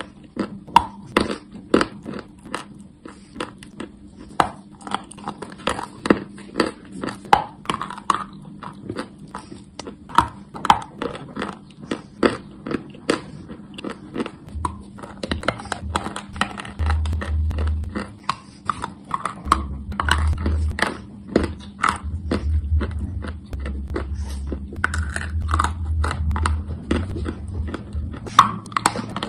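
Close-up crunching of chalk being bitten and chewed: sharp, crisp crunches, two or three a second, with softer chewing between them. A low hum comes in about halfway through.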